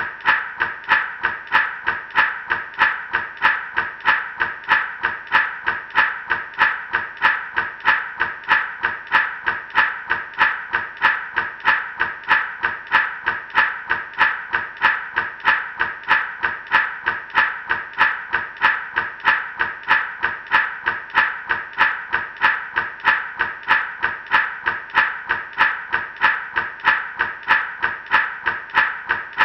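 Gourd rattle shaken in a steady, even rhythm of about three shakes a second, its seeds giving a dry rattle on each stroke.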